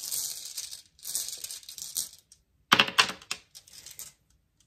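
Rune stones rummaged in a pouch, a rustle lasting about two seconds, then a sharp clatter of stones knocking together as they are tipped out onto the spread of tarot cards, with a few lighter clicks after.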